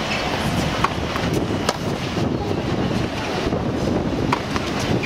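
Wind buffeting the microphone in a steady low rumble, with a few sharp pops of a tennis ball being struck and bouncing on a hard court, spaced irregularly.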